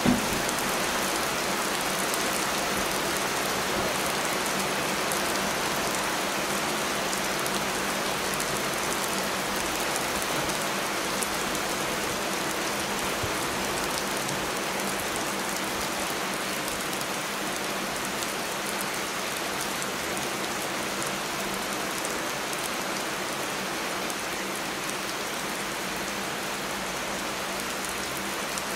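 Heavy rain falling steadily, an even hiss of countless drops on surfaces, with a brief thump at the very start.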